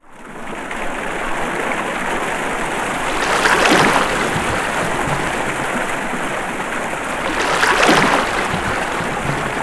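Water sound effect: a steady rush of flowing water, swelling into a splash about three and a half seconds in and again about four seconds later.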